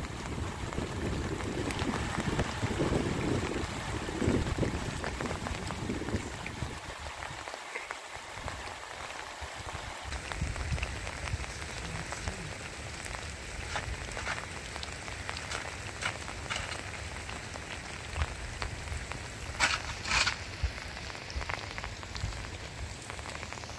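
Rain falling steadily, with a low rumble in the first few seconds and a couple of sharp clicks near the end.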